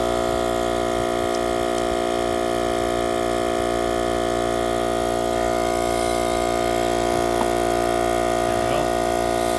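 Husky portable tire inflator's small compressor running steadily at an unchanging pitch, pumping air into a yard cart tyre through a chuck on a newly fitted valve stem.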